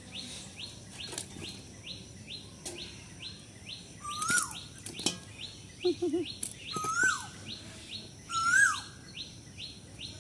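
Birds calling: one repeats a short high chirp about twice a second, while another gives a louder whistled call that rises and then falls, three times in the second half. A few faint knocks come between them.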